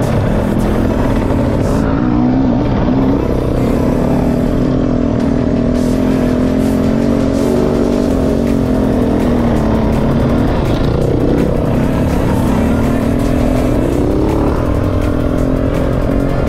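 Enduro dirt bike engines running under load on a grassy climb, the revs rising and falling steadily, heard up close from the rider's own bike.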